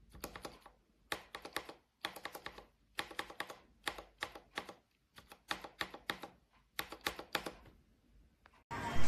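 Mechanical keyboard keys being pressed, short clusters of sharp clicks about once a second, eight times over. Just before the end, music and a voice start.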